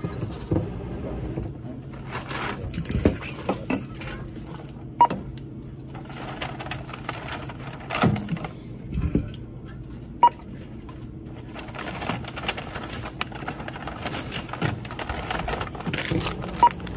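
Checkout counter handling noise, with rustling and small knocks of items and bags, punctuated by three short beeps about five seconds apart from the register's barcode scanner reading items. A steady low hum runs underneath.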